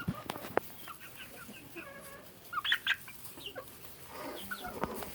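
Backyard chickens clucking while they eat, a string of short soft calls with a few sharp clicks near the start and near the end.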